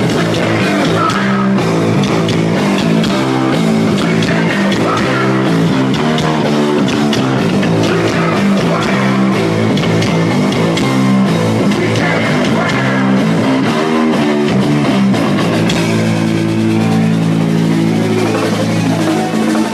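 Rock band playing live: electric guitar and bass riffing over a drum kit, loud and steady.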